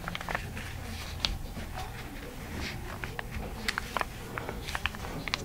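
Sheet of paper being folded and creased by hand: irregular crinkles and light taps, over a low steady hum.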